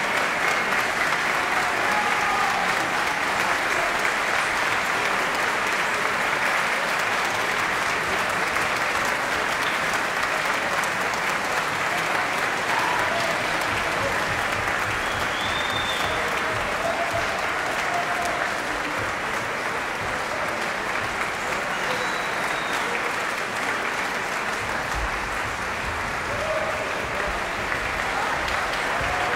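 A concert-hall audience applauding steadily, many hands clapping at once, with a few voices calling out over it.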